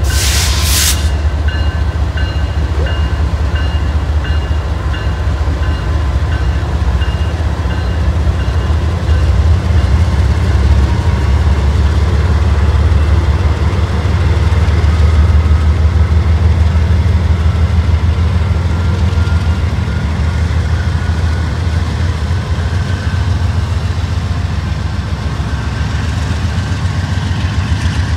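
GE diesel-electric freight locomotives, an ES44C4 and two Dash 9-44CW units, passing close by. Their engines make a loud, deep, pulsing drone that holds steady throughout.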